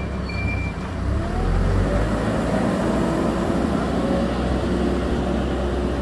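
Hidromek 102 S backhoe loader's diesel engine running, its reversing alarm giving one last beep in the first second and then falling silent. The engine grows louder about a second in and then runs steadily.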